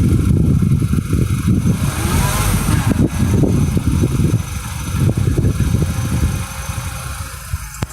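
2011 Mini One's engine running, with a ticking in it that does not follow engine speed and that the owner has not managed to get diagnosed. The sound gets quieter for the last second or so.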